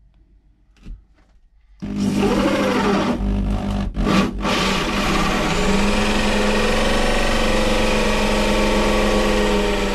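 Corded electric drill with a hole saw cutting into a shower wall panel. It starts about two seconds in and runs steadily, stopping twice briefly around the four-second mark, its pitch sagging and recovering as the cutter bites.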